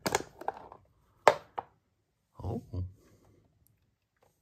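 Handling of plastic storage tubs and lids: a few sharp clicks and knocks, the loudest about a second in. Two short low sounds follow a little later, then it goes nearly quiet.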